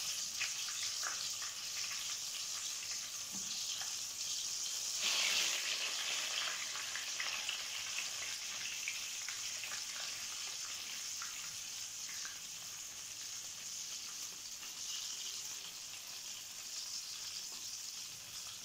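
Skewered chicken bread rolls shallow-frying in hot ghee in a nonstick frying pan: a steady high sizzle with scattered crackles, swelling louder about five seconds in.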